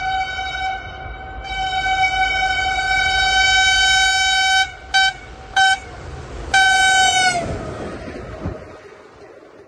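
Diesel locomotive horn of a Talgo passenger train sounded in a pattern: a long blast, two short toots, then another long blast whose pitch sags as it cuts off. The rushing noise of the train passing at speed fades away after it.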